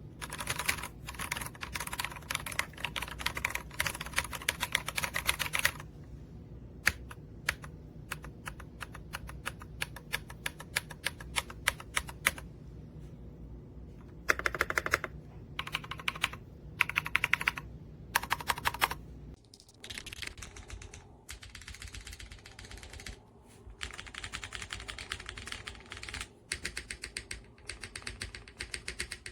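Typing on a mechanical keyboard with EPOMAKER Creamy Jade 45gf pre-lubed linear switches: fast runs of keystrokes broken by short pauses. A low hum lies under the typing until about two-thirds of the way through, when it stops.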